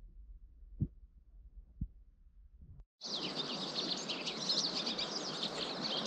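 Faint low wind-like rumble with two soft knocks, then, about halfway in, a sudden dense chorus of many rapid high chirps over a steady hiss. The chirps come from a foraging mixed finch flock of red crossbills, white-winged crossbills and pine siskins calling in spruce and lodgepole pine.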